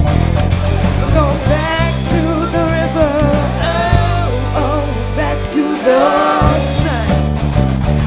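Live rock band playing: electric guitars, bass and drums with women singing over them. The bass and drums drop out for about a second a little past the middle, then come back in.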